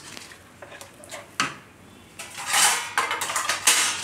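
Dry papad snapped and crumbled by hand, its pieces falling onto a steel plate: one sharp crack about a second and a half in, then two longer bursts of crackling.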